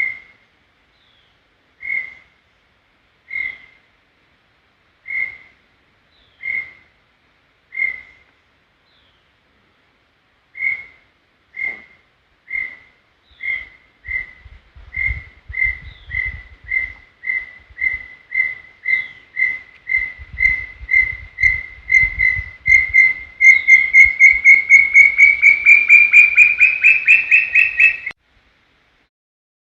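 Brown tinamou song: single clear whistles about a second and a half apart that speed up into a rapid run, growing louder and rising slightly in pitch, then stop suddenly. A low rumble sits under part of the run.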